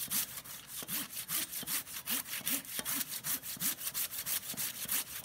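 Hand saw cutting through the trunk of a standing tree, with fast, even back-and-forth strokes, each stroke a raspy scrape.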